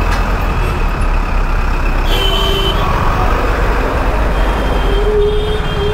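City road traffic heard from a KTM Duke 200 motorcycle: a steady low rumble of engines and road noise, with two brief steady tones from other vehicles, one about two seconds in and one near the end.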